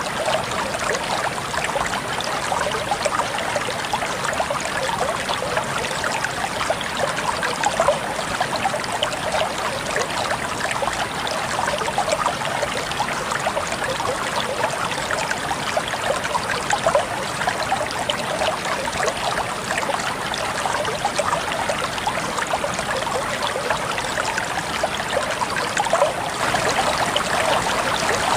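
Water flowing in a stream: a steady babble of many small splashes and trickles, swelling slightly near the end.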